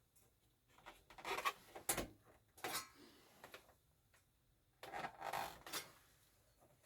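Scraping, rubbing and a few knocks of a single-DIN radio being worked into its dash mounting opening, in two bursts: one about a second in and another about five seconds in.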